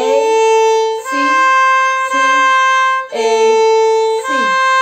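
Beginner-level violin playing a simple bowed phrase: five separate notes about a second each, the last held longer and fading. The phrase ends on C natural, played with the second finger moved to its new low place on the A string.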